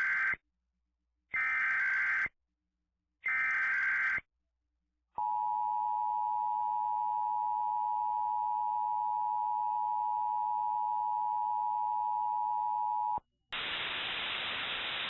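Emergency Alert System signalling: the warbling data bursts of the digital header, about a second each and a second apart, then the steady two-tone attention signal held for about eight seconds. It stops abruptly, and steady static hiss follows near the end, ahead of the spoken alert.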